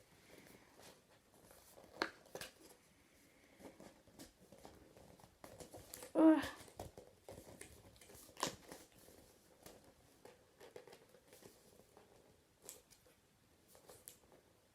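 Cardboard box and packaging being handled: scattered rustles, light taps and clicks, with a short grunt about six seconds in.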